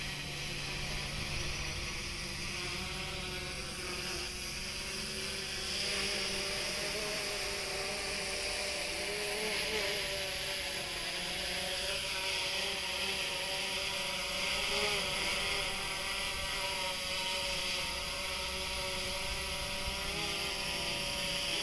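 FIMI X8 SE quadcopter's motors and propellers buzzing steadily as it hovers and drifts low over the rooftops, the pitch wavering slightly as the motors adjust.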